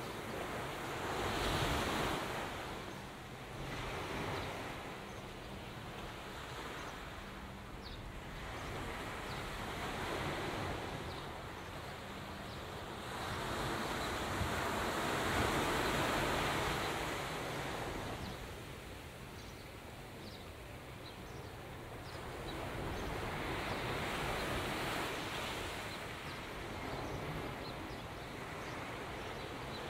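Rushing noise of wind and water, swelling and easing every few seconds.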